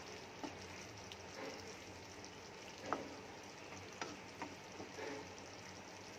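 Thick, reduced egg curry sizzling gently in a pan on a low flame while a spatula stirs it, with a few light scrapes and taps of the spatula against the pan.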